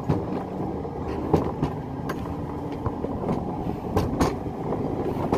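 Alpine mountain coaster cart rolling down its steel monorail track: a steady rumble from the wheels running on the rail, with a few sharp clicks along the way.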